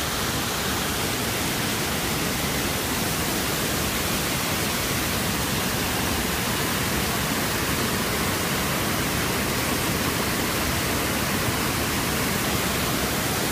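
Waterfall rushing: a loud, steady, unbroken wash of white water pouring over rock into the river.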